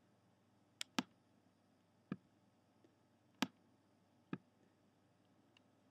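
About five sharp clicks from a computer mouse and keyboard, irregularly spaced, a close pair about a second in and then single ones, over faint room tone.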